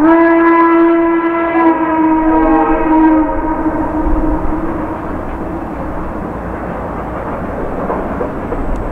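C&O H-6 No. 1309, a 2-6-6-2 Mallet steam locomotive, sounding its steam whistle: one long chord of several tones that drop out one by one, ending about three seconds in. After the whistle, the locomotive's exhaust and the train's running noise go on steadily.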